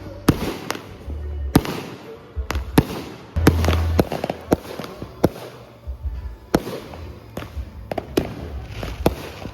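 Fireworks and firecrackers going off: a dozen or more sharp, irregular bangs and pops. Music with heavy bass notes plays underneath.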